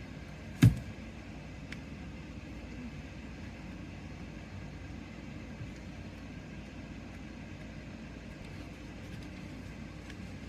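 One sharp knock on the workbench about a second in, over a steady low hum.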